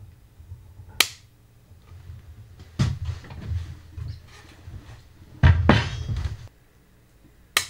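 A heavy wooden board knocking on a wooden workbench as it is lifted, turned and stood back on edge, with the loudest thump and about a second of wood scraping on wood past the middle. There are sharp single clicks about a second in and near the end.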